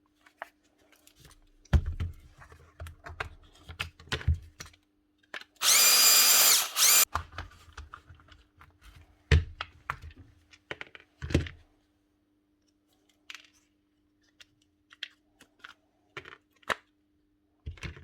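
Clicks and knocks of small metal parts being handled, with a power tool running in one short burst of about a second and a half near the middle, its whine rising as it spins up.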